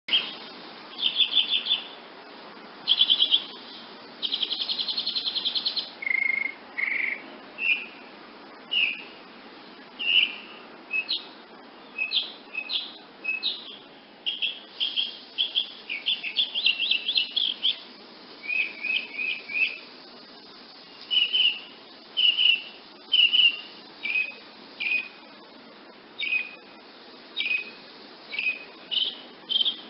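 Woodnymph hummingbird calling: short, high chips given singly and in quick stuttering runs, with a longer rapid buzzy rattle about five seconds in.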